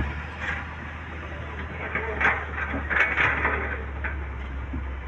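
Excavator engine running steadily, with several short bursts of clatter from about two to three and a half seconds in.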